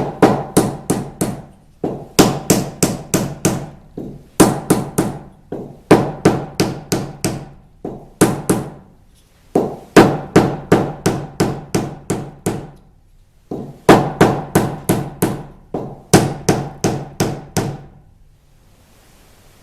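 Rapid hammer blows on a maple mallet workpiece, in about eight bursts of four to seven strikes with short pauses between them. Each strike has a brief pitched ring.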